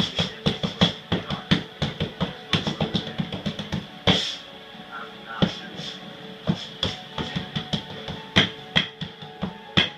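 Bare-handed punches landing on a free-standing Everlast punching bag, in quick flurries of several hits a second with a short pause about halfway through.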